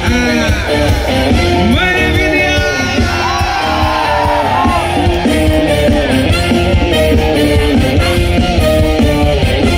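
A live band plays loudly through a concert PA with a steady beat. Voices shout and sing over the music in the first few seconds.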